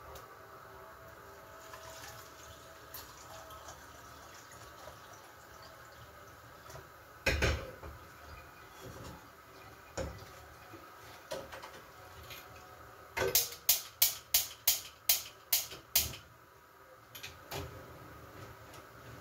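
Gas hob's spark igniter clicking rapidly, about three clicks a second for roughly three seconds, as a burner is lit, a little past the middle. Earlier there is one louder knock, over a faint steady background noise.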